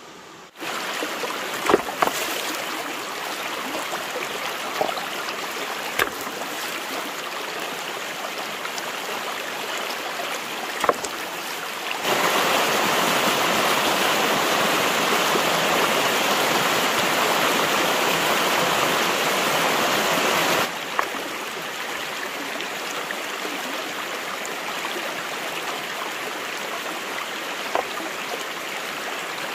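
Stream water rushing steadily, louder for about eight seconds in the middle, with a few short sharp knocks over it.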